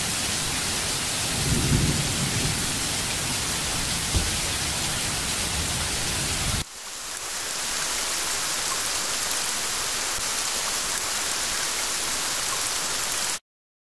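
Rain ambience: a steady hiss of heavy rain, with a low rumble of thunder about two seconds in. The low rumble drops away suddenly about halfway through, and the whole sound cuts off abruptly just before the end.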